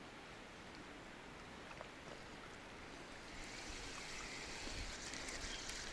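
Faint, steady rush of river water, growing a little louder and hissier about halfway through.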